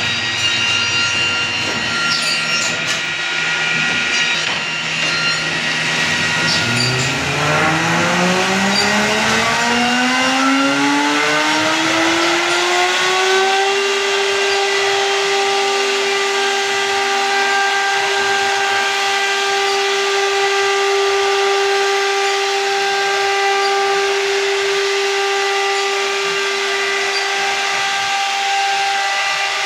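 CNC wood router spindle spinning up: about a third of the way in its whine climbs steadily in pitch for several seconds, then holds a steady high whine as the bit runs in the door panel.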